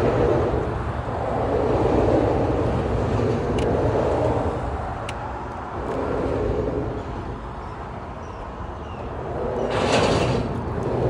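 Road traffic crossing a busy bridge just overhead: a steady rumbling hum that swells and fades as vehicles pass. A louder rushing hiss comes near the end.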